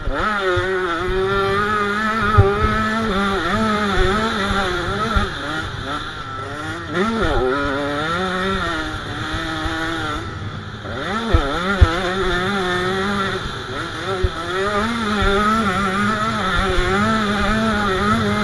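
KTM 85 SX's small two-stroke single-cylinder engine revving hard under a rider, its pitch constantly rising and falling with throttle and gear changes. It eases off about ten seconds in, then picks up again. Low thumps and a couple of sharp knocks come through from the bumpy track.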